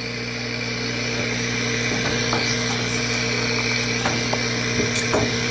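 Steady electric machine hum with a thin high whine, and a few faint small clicks.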